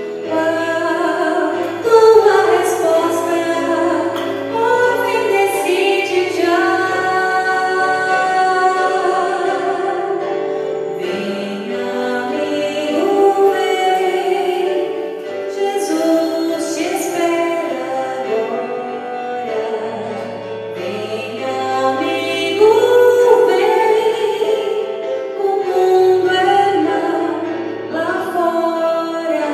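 A woman singing a slow sacred solo through a handheld microphone, holding long notes, over a steady low instrumental accompaniment.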